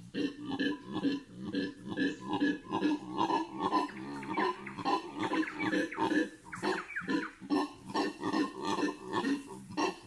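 Howler monkeys howling: a deep, guttural chorus of rapid grunting pulses, about three a second, going on without a break.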